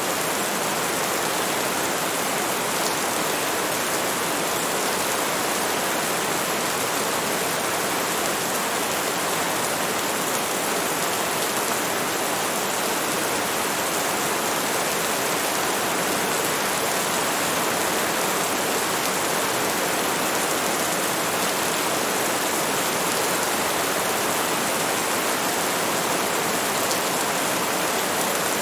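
Steady, heavy rain: a constant, even hiss of rainfall with no individual drops or pauses standing out.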